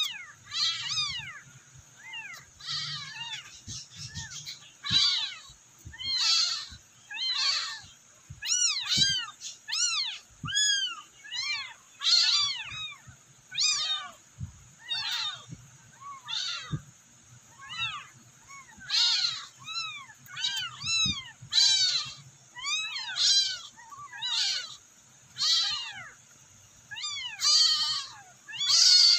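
Several newborn kittens meowing over and over, high thin cries about one or two a second, some overlapping: young kittens crying for their mother.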